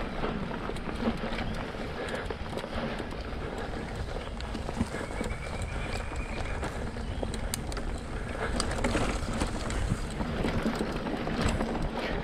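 Specialized Rockhopper mountain bike ridden along a dirt trail: a steady rumble of riding with frequent irregular knocks and rattles from the bike over bumps in the trail.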